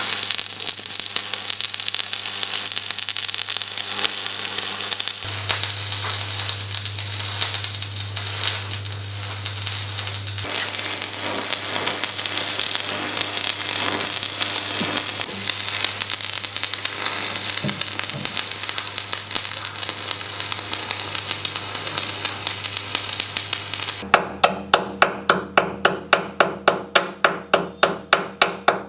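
Arc welding on steel: a steady crackling sizzle of the welding arc over a low hum. Near the end it stops and a hammer strikes metal rapidly, about four blows a second.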